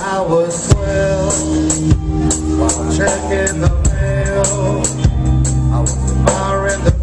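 Live rock band playing: a drum kit keeps a steady beat under bass and electric guitars holding sustained notes.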